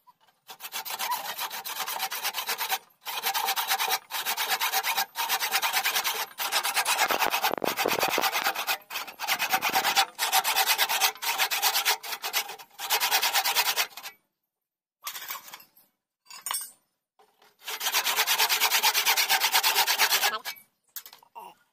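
A flat hand-held block pressed against a wooden goblet spinning on a lathe, rasping in repeated strokes of about a second each with short breaks, a pause of a few seconds in the middle, then one longer stroke.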